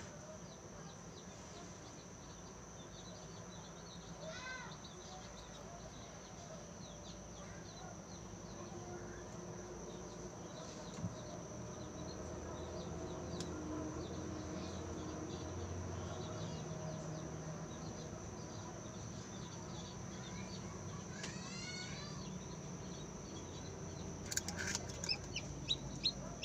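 Hatching chicken chick peeping faintly inside an egg incubator: a few short falling peeps now and then over a steady low hum and a constant high tone. Near the end comes a quick run of small taps and scrapes as the chick kicks free of its shell onto the wire floor.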